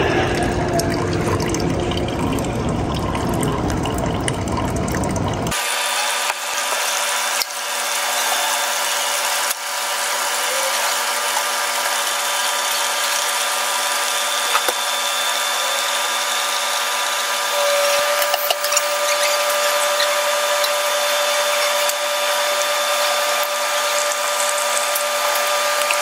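Fetco coffee brewer dispensing brewed coffee in a steady stream into a glass decanter: a continuous hiss of pouring liquid with faint steady whines from the machine. About five seconds in, the deeper part of the sound cuts off abruptly and it turns thin, and another steady whine joins later on.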